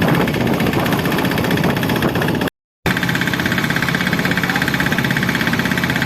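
Boat engine running steadily with a fast, even beat. The sound drops out completely for a moment about two and a half seconds in, then carries on unchanged.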